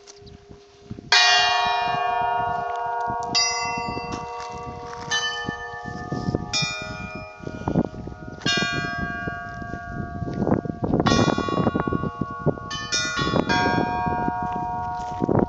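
Russian Orthodox church bells of the Kizhi bell tower being rung: a loud first stroke about a second in, then several bells of different pitch struck one after another every second or two, their ringing overlapping into a peal.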